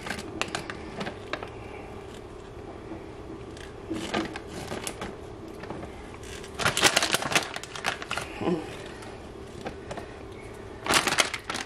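Crinkling and rustling of a plastic bag of shredded cheese and the foil under the pizza as cheese is sprinkled on by hand, coming in several spells, loudest about seven seconds in and near the end, over a steady faint hum.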